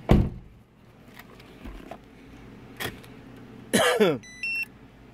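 A loud knock at the start and a click, then about four seconds in a short loud chirp falling in pitch, followed at once by a quick rising run of electronic beeps from a Viper two-way pager remote answering a remote-start command.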